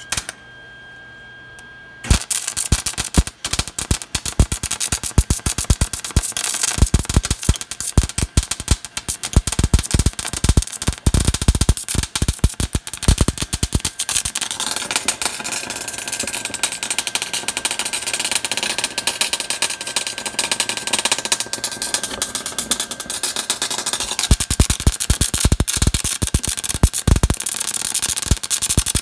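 MIG welding arc crackling as a bead is run on steel, starting about two seconds in. It stutters with several brief stops over the first dozen seconds, then runs steadily.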